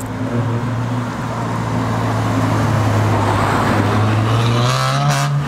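Mercedes-AMG coupe's engine pulling past at low speed: a steady deep note that grows louder and rises slightly in pitch as it passes. Near the end a brief voice calls out and a short sharp crack is heard.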